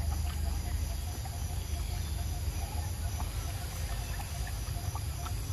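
Outdoor ambience: a steady high insect drone over a constant low rumble, with faint scattered ticks and chirps.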